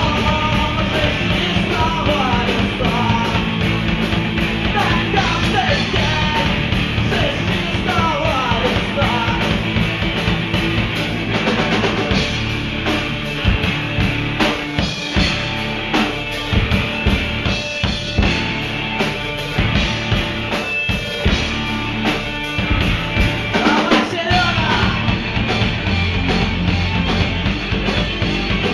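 Live punk-rock band playing an instrumental stretch: electric guitars, bass and drum kit. From about twelve seconds in, the band plays choppy stop-start hits with the drums before settling back into steady playing near the end.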